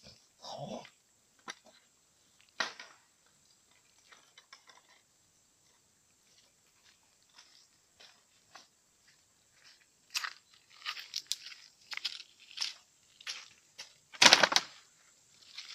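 Crunching and clattering on river pebbles and dry bamboo litter, from footsteps and wood being handled. It is sparse at first and grows into a busy run of crunches from about ten seconds in, with one loud crack near the end.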